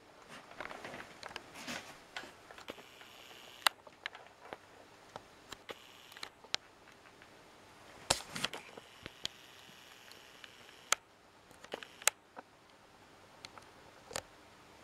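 Handling noise from a plastic digital fishing scale held in the hands: light rustling, then scattered sharp clicks and taps on its casing, with a fingertip tap near the end.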